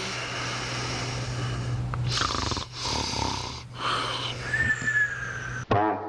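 A person making loud snoring noises: several long, rasping breaths over a low buzz, with a falling whistle near the end, cut off sharply just before the end.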